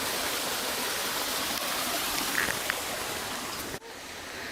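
Small waterfall splashing, a steady rush of falling water that cuts off suddenly near the end.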